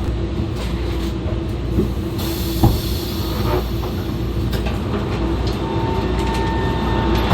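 E2-series Shinkansen running noise heard from a car's vestibule: a steady rumble of wheels on track with a few sharp knocks. A thin steady whine joins in about halfway through.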